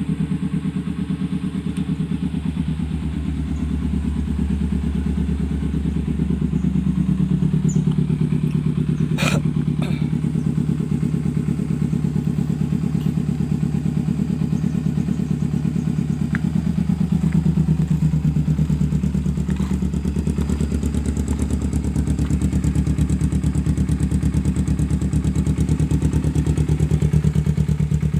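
Kawasaki Ninja 250R parallel-twin engine running steadily through an aftermarket exhaust, a pulsing low note with a couple of gentle rises in revs. A single sharp click about a third of the way through.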